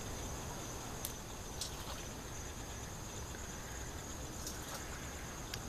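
Crickets trilling steadily in a continuous high chirr, with a few faint ticks.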